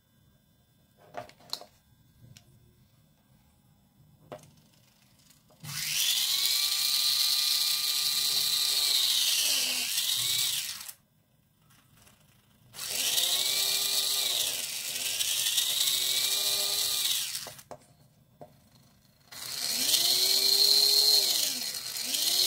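Small yellow plastic 3 V DC gear motor whirring in three runs of a few seconds each, its whine rising as it speeds up and falling as it slows: its speed follows how close the wireless receiver coil is to the transmitter coil. A few faint clicks in the first seconds, before the motor starts.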